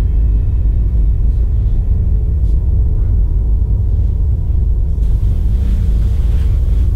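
Low, steady rumbling drone of a suspense underscore, unbroken and without a beat.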